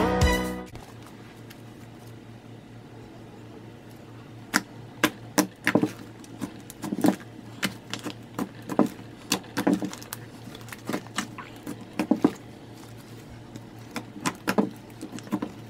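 Thick homemade cream cheese slime, activated with borax solution, being squeezed, folded and poked by hand, giving irregular small clicks and pops.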